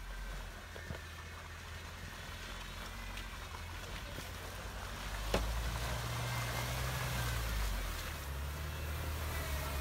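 Jeep Wrangler Rubicon's engine pulling the vehicle through snowy, muddy ruts, growing louder as it approaches. The engine note rises for a couple of seconds just past the middle, and there is one sharp knock about five seconds in.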